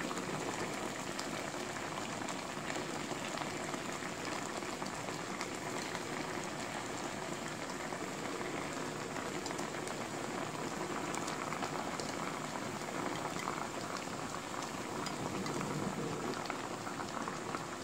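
Water with daikon radish and zucchini simmering in a pan: a steady bubbling. Pieces of raw hairtail are being laid into the liquid.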